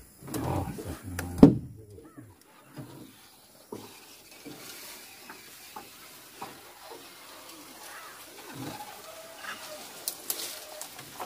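A sharp knock about a second and a half in, then a faint open-air background with a few bird calls and small clicks.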